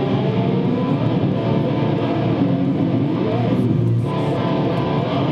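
Music with guitar, playing continuously.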